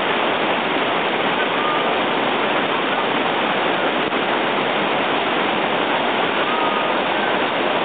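Whitewater rapids rushing steadily, fast water pouring over and around rocks with an even, unbroken rush.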